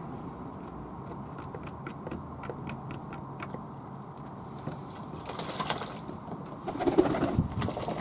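Fantail pigeons cooing, with light splashes and clicks, then a noisy flurry of wing flapping and splashing in their water bath building toward the end.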